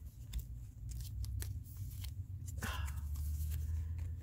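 Fingers handling a ball of yarn and its label band close to the microphone: scattered small clicks and scrapes, with a brief rustle about two and a half seconds in, over a low steady hum.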